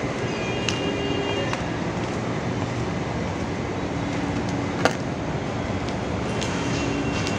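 Steady low outdoor rumble with no speech, with faint high chirps near the start and end and one sharp click about five seconds in.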